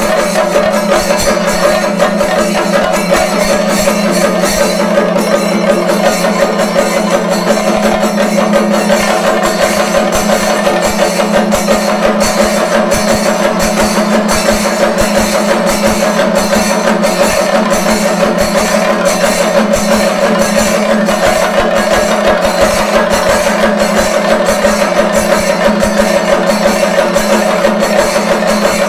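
Thayambaka: chenda drums beaten with sticks in a fast, dense, unbroken rhythm, with ilathalam (bell-metal hand cymbals) clashing steadily over them.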